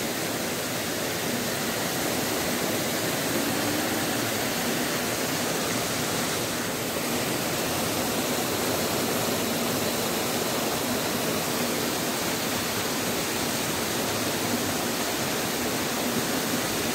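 Shallow, fast-flowing stream rushing over rocks: a steady, even rush of running water.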